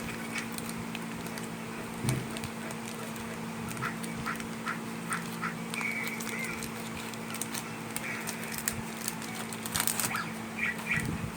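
Foil Pokémon booster pack wrapper crinkling with scattered small crackles as it is handled and opened, over a steady low hum. A few short chirps from a video playing in the background sit behind it.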